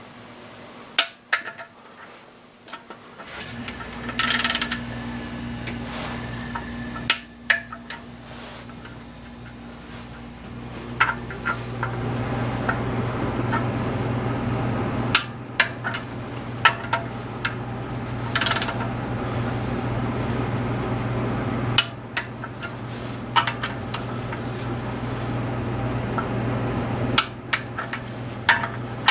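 Metal hand tools clicking and clinking against the camshaft bearing caps of a cylinder head as they are tightened, a string of sharp separate clicks. Underneath is a steady low hum that starts a few seconds in and grows louder about halfway through.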